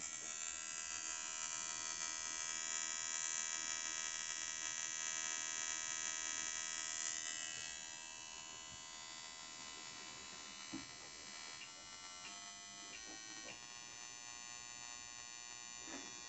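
TCI transistorised ignition firing sparks in rapid succession on a bench test, a steady high-pitched buzz set by a spark rate of about 5000 RPM. It softens about halfway through, and near the middle of the second half the pitch steps up several times as the rate is raised toward about 7000 RPM.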